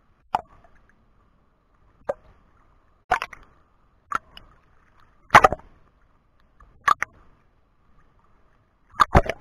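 Choppy sea water slapping and splashing against a camera bobbing at the surface: seven or so short splashes at irregular intervals of one to two seconds, the loudest about halfway through, with a faint steady tone between them.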